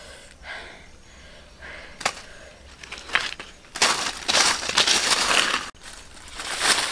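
Dry fallen leaves crunching and rustling as a person moves through and rummages in leaf litter, starting about halfway in and coming in loud crackly stretches.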